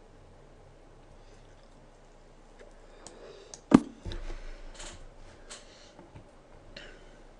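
A single sharp click a little past halfway, as a move is played on the computer in an online blitz chess game, followed by a few faint, soft noises.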